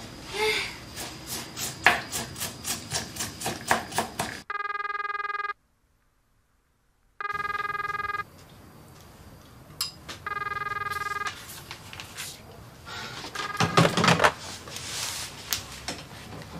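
Quick knife chops on a cutting board, about four a second, for the first few seconds. Then a telephone rings three times, each ring about a second long. Near the end there is rustling and knocking as papers and objects are handled.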